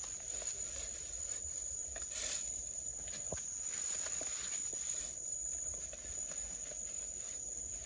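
Night insects calling with a steady, high-pitched trill, with faint rustling steps through the undergrowth.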